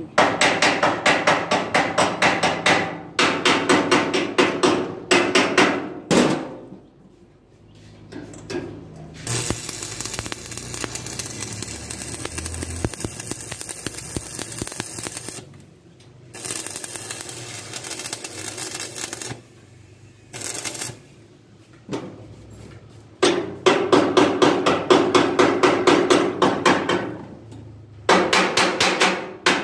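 Rapid hammer taps on steel, several a second, in bursts of a few seconds, typical of chipping slag off fresh stick welds. Between the bursts there is a steadier hissing crackle.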